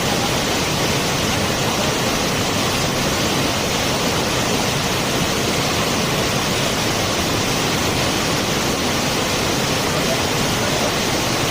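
A waterfall's water falling and splashing, a steady, unbroken rush.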